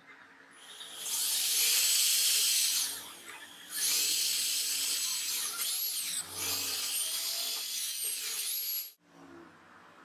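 Cordless drill with a thin bit drilling a small hole into a wooden block: a high whine in two runs, a short one and then a longer one, stopping abruptly about nine seconds in.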